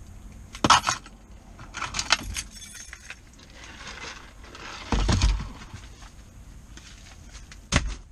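Handling clatter in a car's front seat: small rattles and jangles like keys, a plastic cup set down in the console, and heavy thumps, the loudest about five seconds in and a sharp knock near the end.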